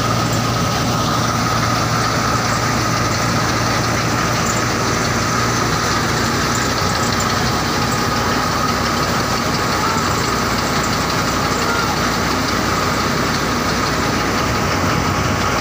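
Tractor diesel engine running at a steady speed and driving a belt-and-pulley farm machine through its PTO shaft, giving one loud, unchanging drone with a steady high tone above it.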